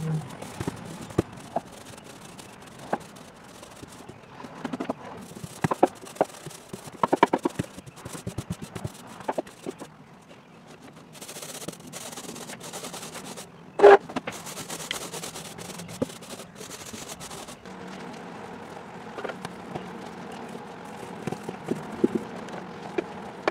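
Small paint roller and brush working primer onto a boat floor: irregular soft clicks and taps, with a quick run of ticks several seconds in and one louder knock about halfway through.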